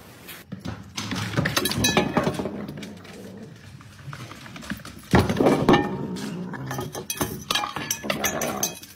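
Stainless-steel pet bowl clanking and knocking against a wooden raised feeder as an animal gets at the raw meat in it, with animal sounds mixed in. The loudest knock comes about five seconds in.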